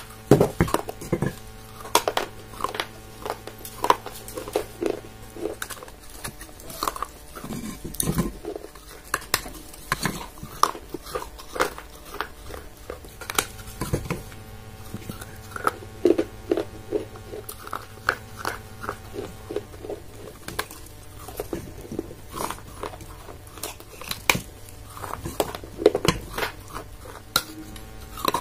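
Close-up crunching and chewing of a clay pot: sharp cracks come at irregular intervals as pieces are bitten off and ground between the teeth.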